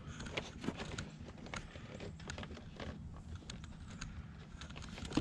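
Faint, irregular clicks and rustling as car-audio power and signal wires are handled and pushed up under the dashboard trim. There is a sharper knock near the end.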